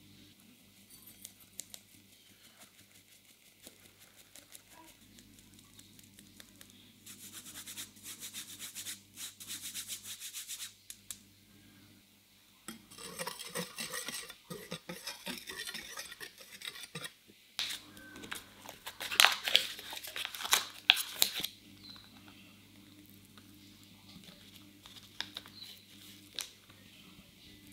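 A fine wire-mesh sieve worked over a glass bowl, sifting flour and cocoa through: a quick patter of fine ticks, then rustling, then a run of sharp taps, the loudest part, about two-thirds in. Near the end, a few faint clicks of a knife cutting a block of butter on its foil wrapper.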